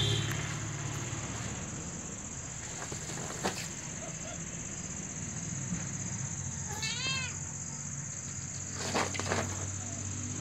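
A cat meows once about seven seconds in: a short call that rises and falls in pitch. A few brief crinkles come from the woven plastic tarp as the cats move on it, over a steady high-pitched whine in the background.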